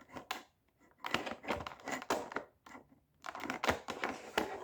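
Cardboard-and-plastic toy packaging being handled and worked open, crinkling and crackling in two irregular spells.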